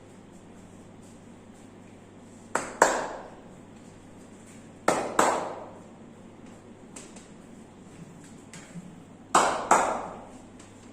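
Three pairs of sharp hand slaps during a massage, two quick strikes about a third of a second apart in each pair, each with a short ringing decay.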